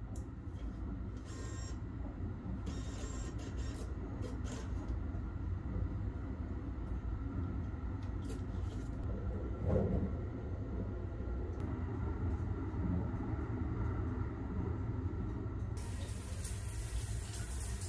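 Steady low rumble of a moving sleeper train heard inside the carriage, with clicks and rattles in the first few seconds as a shower card goes into the shower room's card reader, and a single thump near ten seconds. About two seconds before the end, a hand-held shower head starts spraying, a steady hiss over the rumble.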